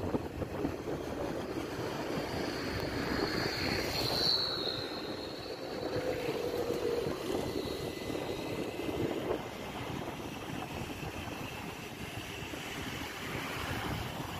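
Steady road and wind noise from a moving vehicle, with a brief higher whine about four seconds in.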